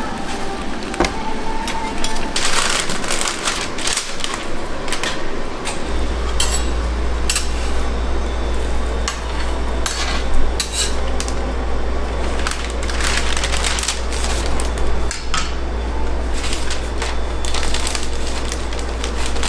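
A metal spatula scrapes and clacks against a steel flat-top griddle as a rolled egg omelette is turned and shifted, giving a string of sharp clicks and scrapes. A steady low hum comes in about six seconds in and keeps going.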